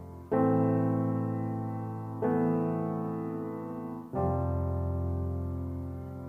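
Background music: slow piano chords, one struck about every two seconds, each ringing and fading until the next.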